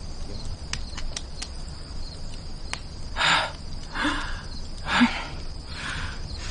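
Steady high insect chirring with a few light clicks in the first half, then four short breathy bursts about a second apart in the second half.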